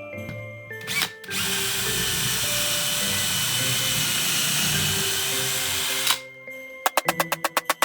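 A steady, loud whirring noise like a power tool running for about five seconds, cutting off sharply, followed by a rapid run of sharp clicks, several a second; light music plays underneath.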